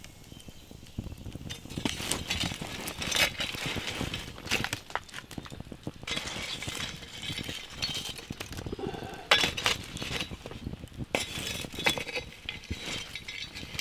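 Wood campfire crackling, with irregular sharp clicks throughout and a few louder metallic clinks as a shovel blade is worked among the coals and stones.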